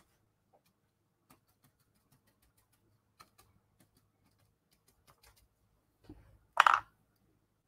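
Faint, scattered light clicks and taps from art tools being handled on a desk during painting. Near the end comes one short, loud, noisy scuff.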